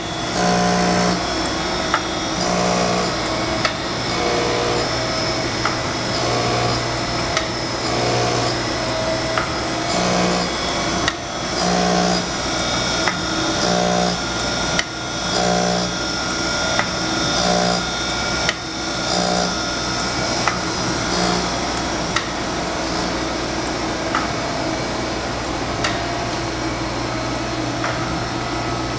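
Harig 618W surface grinder running: a steady hum from the spindle motor and hydraulics, with the wheel grinding a steel workpiece in regular bursts about every two seconds as the automatic hydraulic table traverses back and forth, each stroke marked by a short knock. The grinding bursts grow weaker in the last several seconds.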